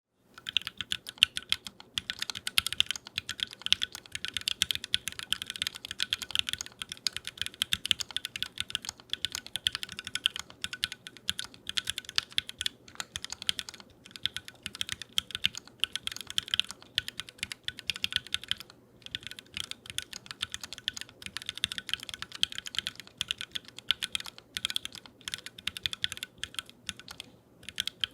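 Steady, fast typing on a custom Alice-layout mechanical keyboard with unlubed Tealios V2 linear switches (UHMWPE stems) and GMK doubleshot ABS keycaps: a dense run of sharp key clacks, with a couple of brief pauses near the end.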